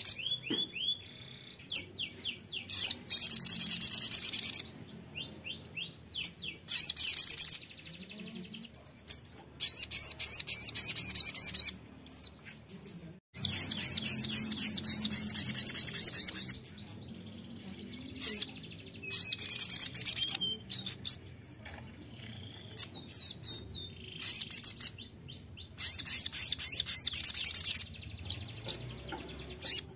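Sunbird (sogon) song: bursts of very rapid, high trilling, each lasting one to three seconds, repeated about seven times. Quieter chips and short slurred notes fill the gaps between bursts.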